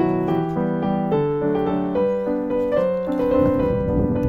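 Background piano music: a gentle melody of single notes changing a few times a second over held lower notes.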